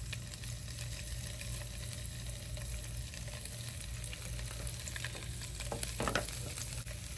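Paneer shallow-frying in a few spoons of hot oil: a steady sizzle with small crackles and pops, briefly louder about six seconds in.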